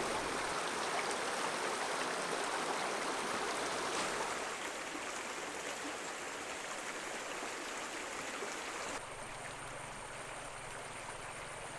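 Shallow creek running over stones: a steady rush of water that drops in level about four seconds in and again near nine seconds in.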